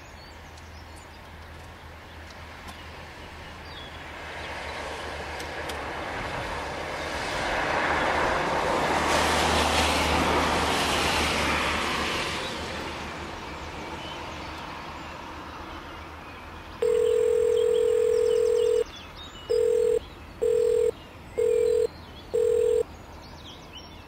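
A rushing noise swells to a peak about ten seconds in and fades away. Then a steady electronic beep sounds: one long tone of about two seconds, followed by four short beeps.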